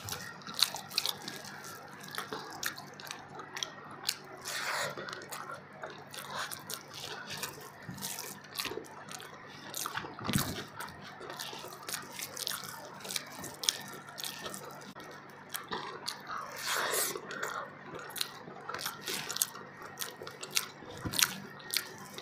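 Close, wet eating sounds: irregular chewing, lip smacks and small mouth clicks as mouthfuls of fish biryani are eaten, with fingers squishing and scooping the rice.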